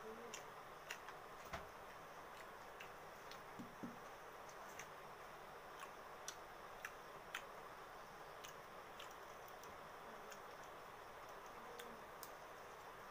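Faint, scattered clicks and ticks of someone eating rice and curry by hand from a steel plate, over a low steady hiss.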